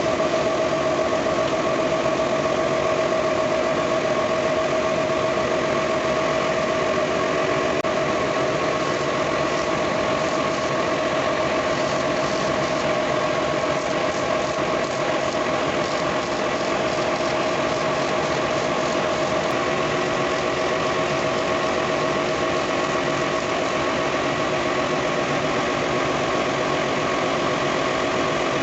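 A machine running steadily: an unbroken mechanical hum with a strong, constant mid-pitched tone.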